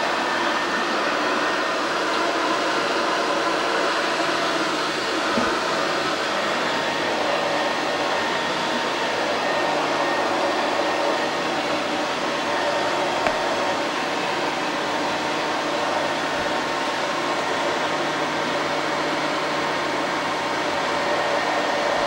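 Vacuum cleaner running steadily, its motor giving an even whir, with a light knock about 13 seconds in.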